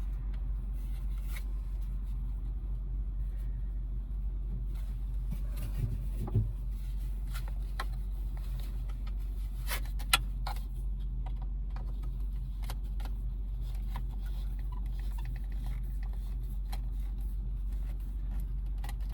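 A steady low mechanical rumble, with small clicks and knocks of screws, hardware and tools being handled; the sharpest knocks come about six and ten seconds in.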